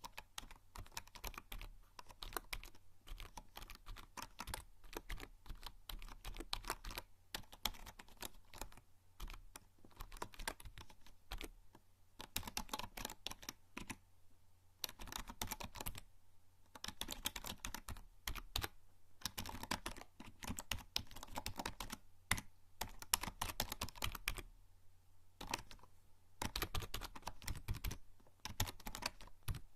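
Typing on a membrane computer keyboard: fast, irregular runs of soft key presses, broken by short pauses.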